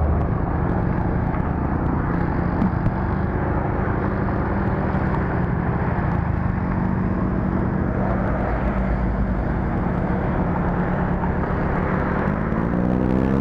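Yamaha XMAX 300 scooter's single-cylinder engine running steadily at road speed, with wind rush; near the end the engine note rises as it accelerates.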